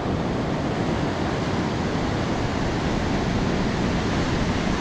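Pacific Ocean surf breaking on a sandy beach: a steady, even wash of noise.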